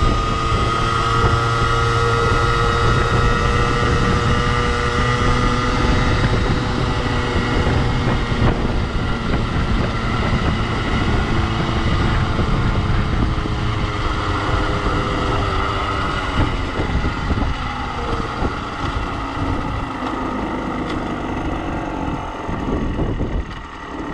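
Beta RR50 Track's 50cc two-stroke engine running under way, its rev limiter derestricted by a cut wire, with wind rushing over the microphone. The engine note sinks slowly over the first several seconds, and the sound drops off near the end as the bike slows.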